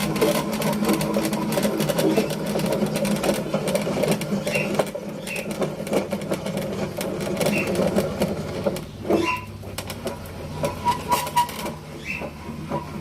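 Blade-height mechanism of a homemade all-wood table saw being worked up and down: irregular clicks and wooden knocks over a steady low hum.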